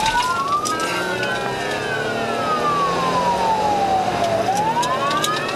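Police siren on wail: it rises over about a second and a half, falls slowly for about three seconds, then starts rising again near the end. Engine and road noise run underneath.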